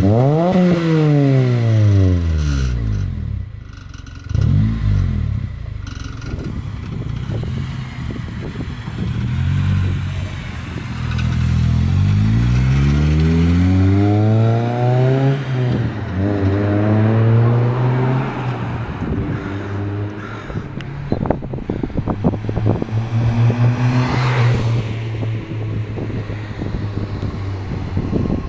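A 2002 Acura RSX Type S's 2.0-litre four-cylinder through a Borla cat-back exhaust: it is revved up and down at the start, with a short blip a few seconds later. The car then pulls away, its exhaust note climbing twice under acceleration before settling into a steadier drone.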